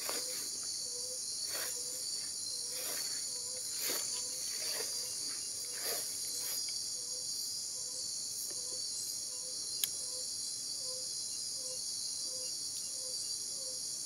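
Steady high-pitched chorus of crickets and other night insects, with a low pulsed call from an unidentified animal repeating about twice a second. A few brief rustles in the first several seconds.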